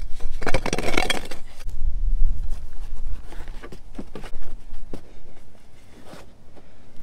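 A trenching tool scraping and chopping into soil in a short burst, followed by a few scattered knocks and scuffs as a plastic hedge trough is handled and set into the trench.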